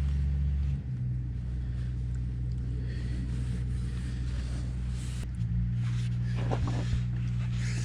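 Steady low hum of an idling engine, its pitch shifting slightly twice, with a few light knocks near the end.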